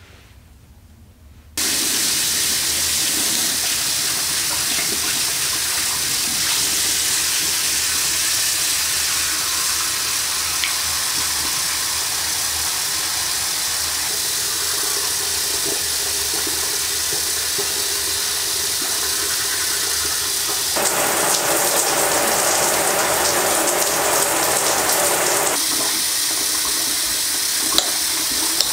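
Bathroom sink faucet running steadily into the basin, starting abruptly a second or two in. For about five seconds near the end the water sound grows fuller and a little louder.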